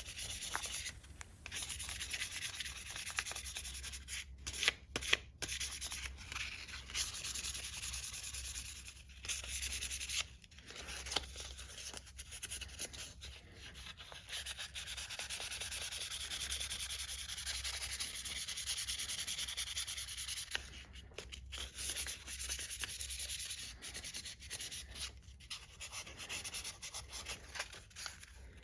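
Sandpaper rubbing back and forth over a pocket knife during hand sanding: a steady scratchy hiss with a few brief pauses between strokes.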